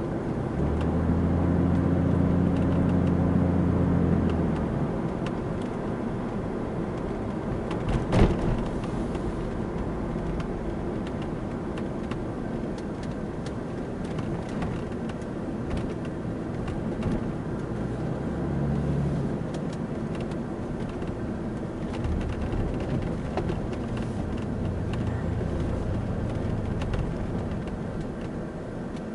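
Cabin sound of a Mercedes-Benz 300 SDL Turbo with its 3.0-litre OM603 six-cylinder turbodiesel, driving slowly with steady engine and road noise. About a second in, the engine drone grows louder for about four seconds, and it swells again briefly past the middle. There is a single knock about eight seconds in.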